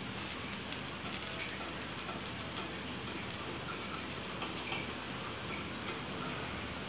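Gram-flour (besan) chilla batter sizzling on a hot oiled tawa, a steady crackling fry with many small ticks.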